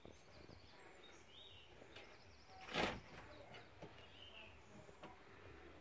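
Quiet room tone with a few faint, short, high chirps, and one short, loud burst of noise about three seconds in.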